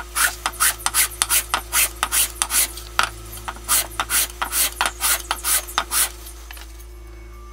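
Edge of a 1/4-inch aluminium plate being sanded: rubbed back and forth on sandpaper taped to a flat block, a rapid rasping scrape of about three strokes a second that stops about six seconds in.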